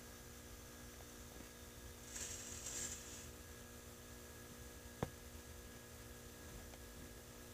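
Quiet room tone under a steady electrical hum, with a brief high hiss about two seconds in and a single faint click about five seconds in.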